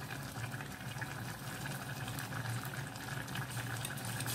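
Pot of coconut-milk curry simmering on a gas stove: a steady bubbling hiss with a low hum underneath.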